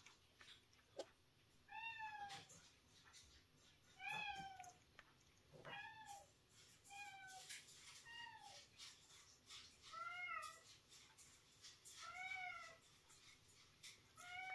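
Domestic cat meowing over and over, about eight short meows roughly two seconds apart, each rising and then falling in pitch.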